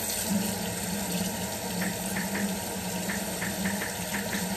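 Kitchen faucet running steadily into the sink as raw chicken drumsticks are rinsed under the stream, with a few short splashy ticks in the second half.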